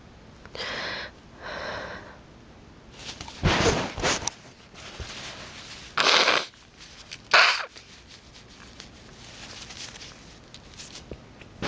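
A sneezing fit: two softer breathy sounds, then a run of sharp, loud sneezes a second or two apart.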